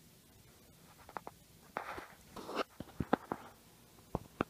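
Handling noise from fingers working on an opened iPhone: scattered small clicks and taps with a couple of brief rustles, several sharp clicks close together about three seconds in.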